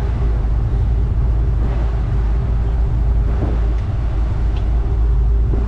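Side-by-side off-road vehicle's engine running steadily, a constant low drone with a steady hum, heard from the seat inside the open cab.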